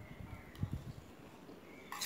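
Close-miked chewing of a mouthful of puffed rice: soft, dull, irregular thuds that are strongest in the first second. At the very end a steel spoon clicks against the bowl.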